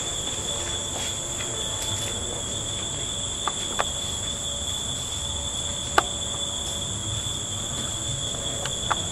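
Steady chorus of night insects, a continuous high-pitched buzz, with a few sharp clicks, the loudest about six seconds in.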